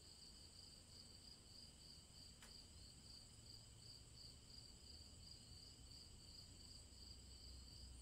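Faint crickets chirping at night in a steady, evenly pulsing chorus.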